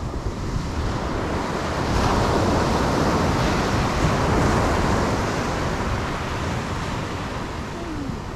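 Surf breaking steadily on a sandy beach, with wind rumbling on the microphone.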